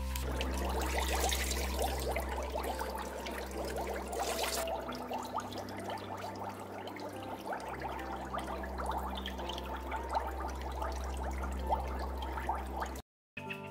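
Bathwater splashing and trickling as a small dog is washed by hand in a tub, over a low steady hum. The sound cuts off abruptly near the end.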